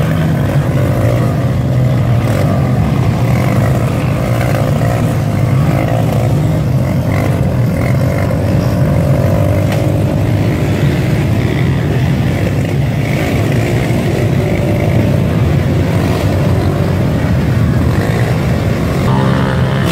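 Several dirt bike engines running and revving, their revs rising and falling, as the bikes are ridden and pushed through deep mud with the rear wheels spinning for grip.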